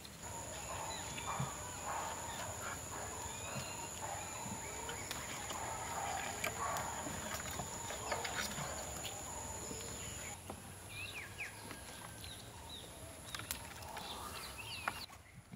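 Outdoor ambience of birds chirping in short rising and falling calls over a steady high whine that stops about two-thirds of the way through. Soft clicks and rustles come from hands pulling rambutans off their stalks and peeling them.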